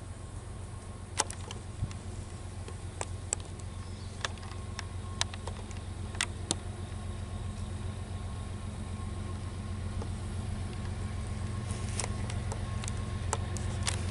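Distant diesel locomotive engine of an approaching CSX freight train: a low, steady drone that slowly grows louder as the train nears. A scattering of sharp clicks sits over it.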